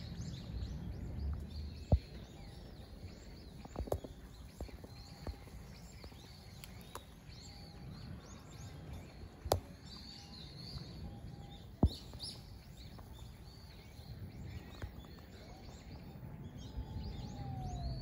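Outdoor ambience with small birds chirping faintly and repeatedly over a steady low rumble, broken by a few sharp clicks.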